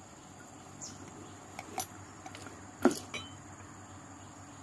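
Grease gun being pumped into a propeller shaft universal joint through its grease nipple: a few scattered metallic clicks and clinks, the loudest just under three seconds in.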